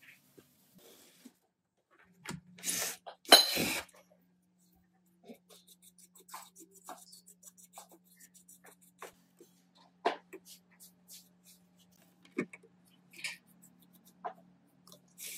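A paintbrush scrubbing dust out of an old power stabilizer's chassis, its bristles flicking over wires, circuit board and sheet metal in quick light ticks. Two loud rushing bursts come a few seconds in, and a faint low hum runs underneath.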